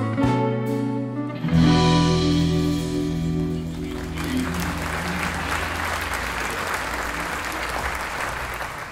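A live band ends a song: a few picked electric guitar notes, then a final full-band chord that rings out. Audience applause comes in about four seconds in and fades away near the end.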